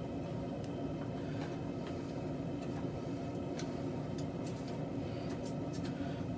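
Forge running steadily while steel heats in it, a constant low rush with scattered faint crackles.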